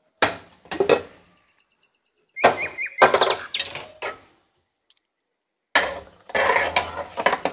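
Aluminium Prestige pressure cooker being opened: metal clanking and scraping as the lid is handled off, with a few short high bird chirps in between. Near the end a metal spoon scrapes and knocks against the pot, stirring the soft cooked rice inside.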